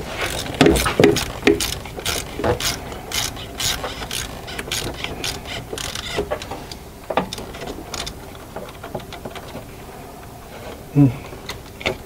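Ratchet wrench clicking in quick runs as it loosens the 13 mm nut on the starter motor's power-cable terminal. The clicks thin out after about six seconds, and there is a single knock near the end.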